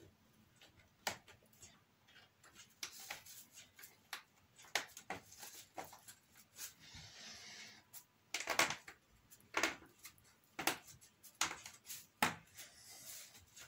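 Hands fitting laser-cut wooden bridge parts, pressing their tangs into slots: a scattered series of small wooden clicks and taps, louder in the second half, with some soft rustling as the hands move over the parts.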